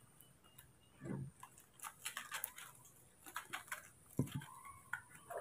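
Faint crinkling and small tapping clicks as baby monkeys handle a foil milk-powder packet and a plastic feeding bottle, in scattered clusters with a soft thump about a second in.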